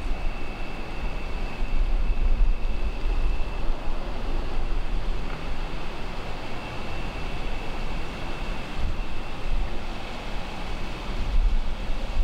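Wind buffeting the microphone: a steady, uneven low rumble, with a thin high tone running faintly through it.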